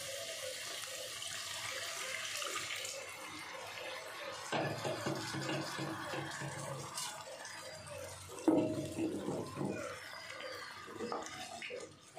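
Hot water poured into a kadai of frying spice masala, hissing and bubbling as it hits the hot oil. From about four and a half seconds in, a wooden spatula stirs and scrapes the masala in the pan. The water is added so the masala can be cooked down well.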